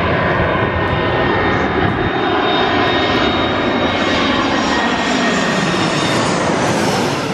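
Twin-engine jet airliner passing low overhead on final approach to land: loud, steady jet engine noise with a high whine, growing brighter and sharper near the end as it comes overhead.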